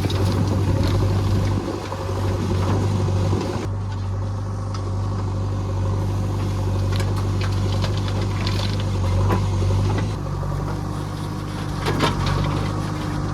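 Diesel engine of heavy machinery running steadily, its hum shifting slightly about ten seconds in, with scattered sharp knocks and clanks, the loudest about twelve seconds in.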